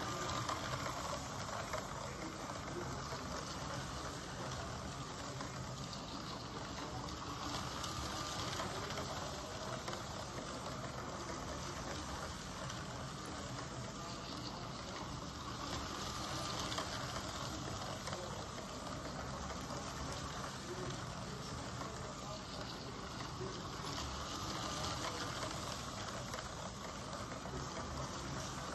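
A LEGO train motor whirring and plastic wheels rattling along plastic LEGO track as a LEGO Gordon locomotive and its coaches run round the loop. The noise is steady and swells a little about every eight seconds as the train comes round.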